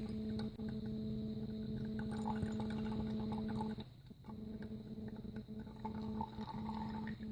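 A steady low hum that drops out briefly about four seconds in, with faint scattered clicks and taps over it.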